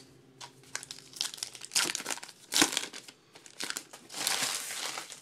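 Baseball card pack wrapper crinkling and tearing as a pack is pulled open by hand, in a string of short bursts of rustle spread over a few seconds.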